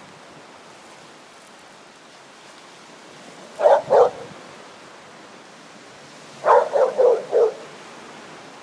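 A dog barks twice in quick succession, then about three seconds later barks four more times in a fast run, over a steady wash of wind and small waves.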